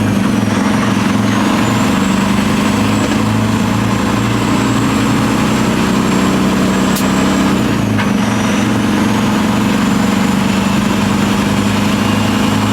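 Semi truck's diesel engine running steadily, a low even hum with a faint high whine above it and a sharp click about seven seconds in.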